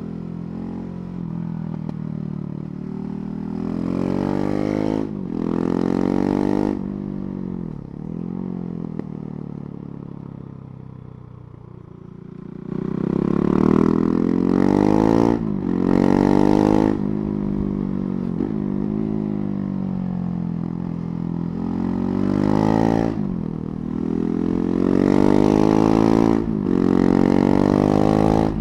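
KTM 690 Duke's single-cylinder engine under way, its revs climbing and then dropping sharply at each upshift. About a quarter of the way in it goes quieter with falling revs, off the throttle. From about halfway it pulls hard again through several quick upshifts.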